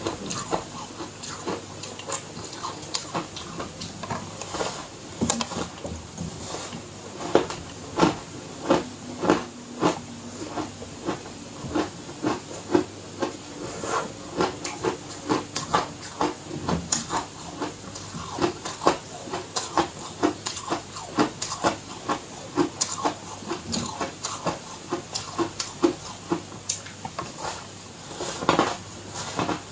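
Close-miked bites and chewing of ice, with a quick run of irregular crisp crunches, roughly two a second, over a steady hiss.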